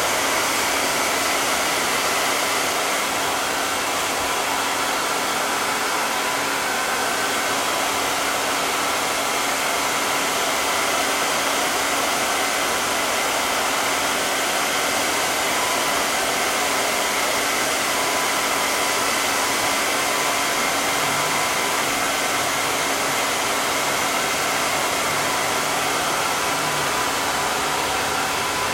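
Hair dryer running steadily, an even rush of air with a constant hum from its motor and fan.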